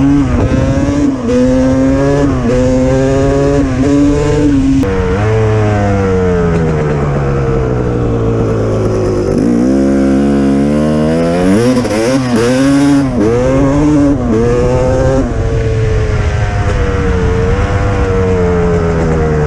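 An engine running with its speed going up and down as the throttle is worked. It slows right down about nine seconds in, then revs back up.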